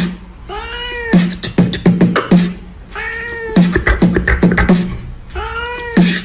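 A cat's meow, rising then falling in pitch, alternating with a quick run of rhythmic clicks and thumps; the pair repeats about every two and a half seconds, like a looped beat.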